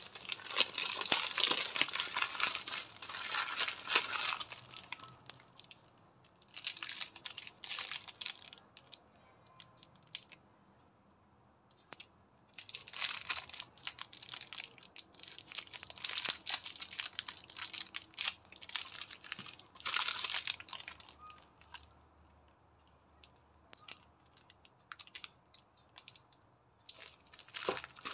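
Crinkly plastic wrapping and a bubble-wrap bag crinkling and rustling in the hands as a small parcel is unwrapped. It comes in several spells of handling, loudest in the first few seconds, with short quiet pauses between.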